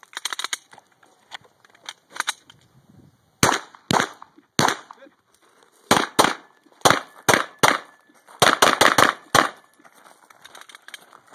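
Gunfire: a quick run of quieter shots at first, then about a dozen loud, sharp handgun shots in pairs and quick strings, the last a fast burst. Footsteps crunching on gravel near the end.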